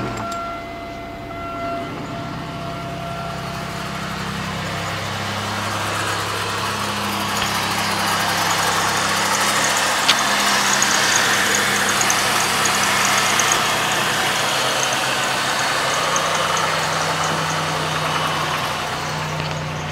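1997 Chevrolet Malibu's 3.1-litre V6 idling steadily just after a cold start, the engine not run since the day before.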